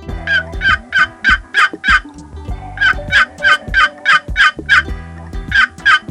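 Domestic fowl calling in three runs of rapid, evenly spaced harsh notes, about three or four a second, each run lasting around two seconds.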